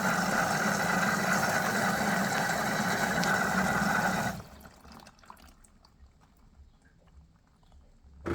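Water rushing at high pressure into an LG washing machine's drum through the inlet, a loud steady rush that cuts off abruptly about four seconds in, leaving only faint ticks and drips.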